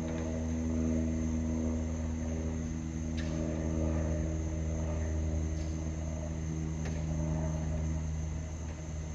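An aircraft's engines drone steadily at a nearly even pitch, with a thin high steady tone above them and a few faint clicks.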